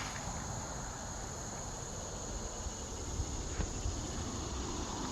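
Steady high-pitched insect chorus, with low rumbling noise underneath.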